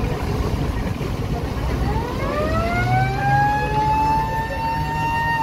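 Passenger launch's engine rumbling, with water and wind noise. About two seconds in, a boat's siren starts, rising in pitch and then holding a steady high wail.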